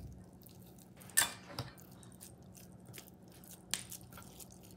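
Hands squeezing and kneading raw ground beef in a stainless steel bowl: a few short, soft squelches about a second apart, over a faint steady hum.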